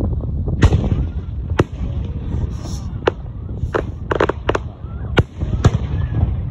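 Fireworks going off: about nine sharp bangs and pops at uneven intervals, some with a brief crackle after them, over a steady low rumble.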